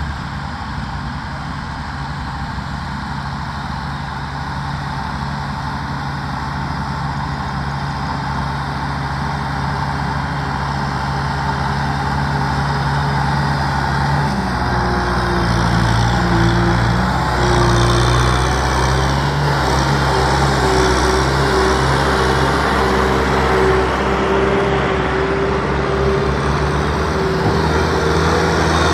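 Diesel engine of a Kubota M6040SU tractor running steadily under load as it hauls a trailer of rice sacks through deep mud. The engine note changes and grows louder about halfway through.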